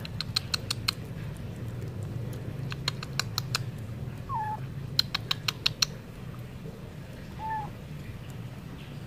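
A cat lapping and chewing wet cat food off a board: quick runs of wet clicking smacks, about eight a second, in three bursts, at the start, about three seconds in and about five seconds in. Two short faint calls come in between.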